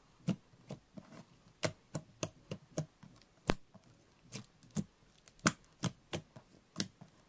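Glossy yellow slime pressed flat and folded by hand, giving a string of sharp, irregular clicks and pops, about two a second.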